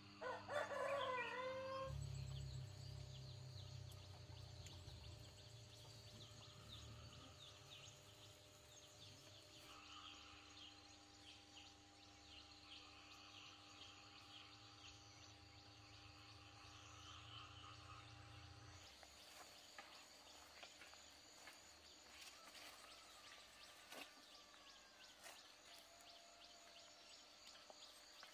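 A rooster crows once at the very start. After that, faint bird chirps and insect sounds sit over a low steady hum, which stops about two-thirds of the way through.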